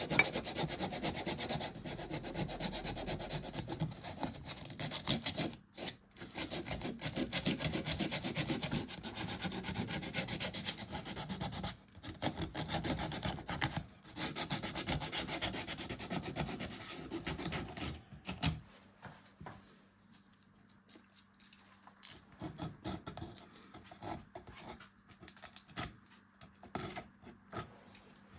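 Rapid back-and-forth hand rubbing of an abrasive, sandpaper or rasp, on a beechwood cup, steady for about two-thirds of the time with a few short breaks. Near the end only a few faint, scattered scratches are left.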